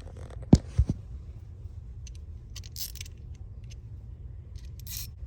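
Metal tools clinking and scraping against car parts during hands-on work: three sharp knocks in the first second, the first the loudest, then a few short scrapes, over a steady low rumble.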